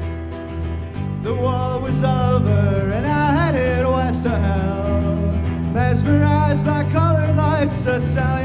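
Live band playing: strummed acoustic guitar and electric bass guitar, with a man's voice singing a melody from about a second in.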